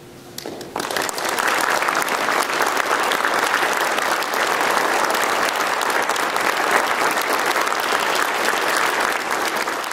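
The last sung chord dies away, and about half a second in the audience breaks into applause: dense, steady clapping that holds through to the end.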